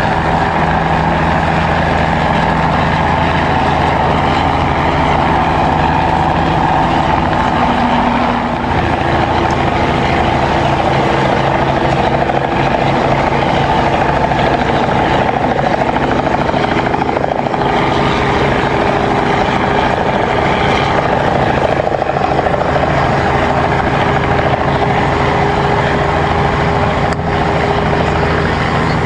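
Unmanned Rotor Sprayhawk agricultural helicopter, a converted Robinson R44, flying a spray pass: its piston engine and main rotor run steadily, with a rapid rotor beat over the engine drone.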